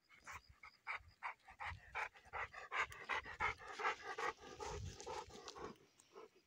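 A dog panting hard after a run, quick breaths at about four a second that grow louder and then fade out near the end.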